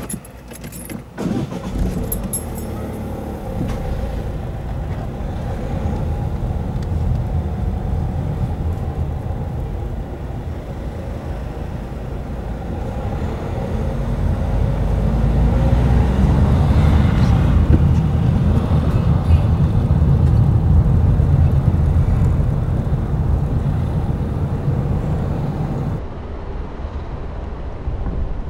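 Car being driven along a street: steady engine and tyre noise heard from inside the car, growing louder as the engine note rises with acceleration about halfway through.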